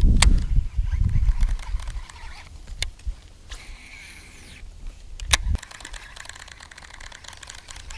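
A baitcasting rod being cast: the reel's spool gives a brief whir about three and a half seconds in. Around it are a few sharp clicks and knocks of rod and reel being handled close to the microphone.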